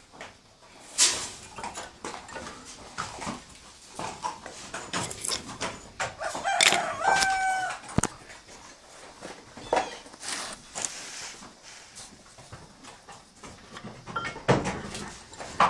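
A rooster crowing once, about six and a half seconds in, amid scattered clicks and knocks.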